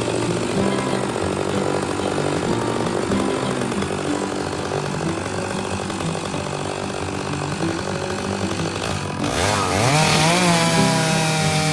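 Vintage Stihl 056 two-stroke chainsaw running under load in an Alaskan chainsaw mill, ripping a log lengthwise into boards. About nine seconds in the engine note rises sharply and holds at a higher, steadier pitch as the saw comes off load.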